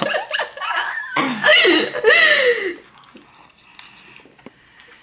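People laughing for about the first three seconds, then dying down to quiet.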